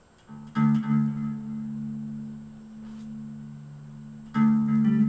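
Hondo II Stratocaster-copy electric guitar played through an amplifier: a chord strummed about half a second in and left to ring and fade, then a second chord strummed near the end.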